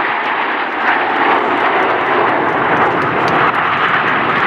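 Formation of Aermacchi MB-339 jet trainers flying past, a steady rushing jet noise from their Rolls-Royce Viper turbojets.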